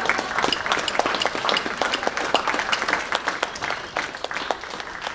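Audience applauding, many hands clapping at once, the clapping thinning out and fading over the last couple of seconds.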